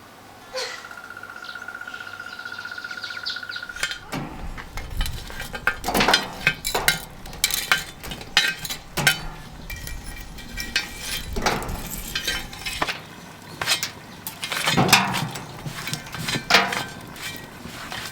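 Irregular clinks and knocks of metal cooking utensils against cookware, starting about four seconds in and going on in quick, uneven strokes. Before that, a steady high-pitched tone is heard.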